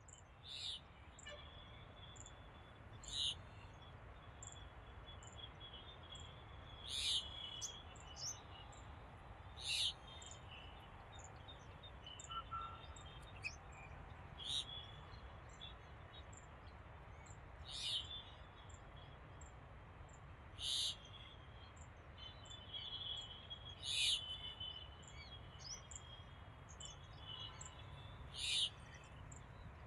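Purple sunbird calling: short, sharp, high-pitched notes repeated every few seconds, with fainter high chirps in between.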